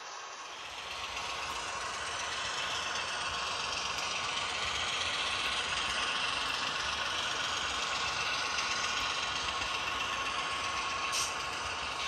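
HO-scale model diesel locomotive and freight cars rolling past on the track: a steady rumble and wheel rattle with a thin motor whine, getting louder about a second in as the train comes by. There is a single short click near the end.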